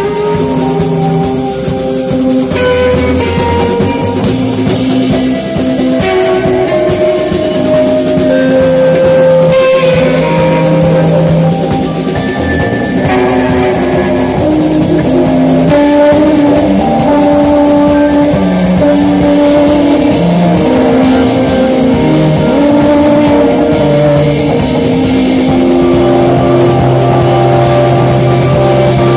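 Live instrumental jazz-rock band playing loudly: a drum kit played busily under electric bass and guitar, with long held and sliding notes.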